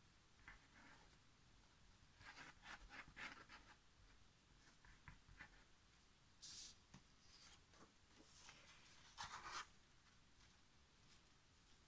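Faint scratchy rubbing of a liquid-glue bottle's nozzle drawn over cardboard as glue is laid in lines, then a short paper rustle about nine seconds in as a sheet of scrapbook paper is laid onto the glued card.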